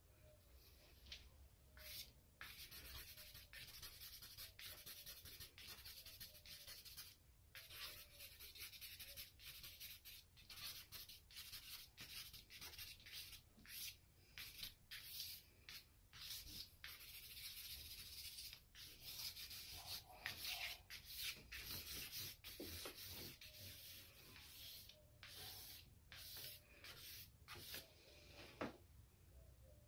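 Faint scratching and rubbing of a willow charcoal stick drawn across cartridge paper, in irregular strokes of varying length with short pauses between them.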